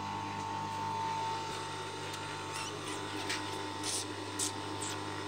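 Hands rustling and shifting thick fleece fabric, a few short scrapes in the second half, over a steady electric hum from the idling industrial sewing machine's motor.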